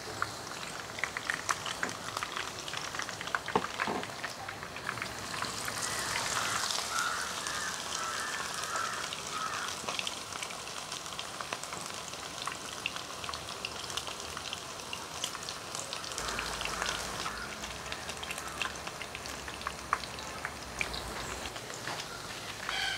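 Onion-and-chicken vada fritters deep-frying in a pan of hot oil: a steady sizzle full of small crackles and pops, busiest about six to ten seconds in.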